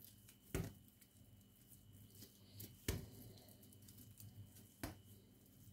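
Faint handling of soft yeast dough being torn into pieces by hand, with three short taps about two seconds apart as the pieces are set down on the countertop.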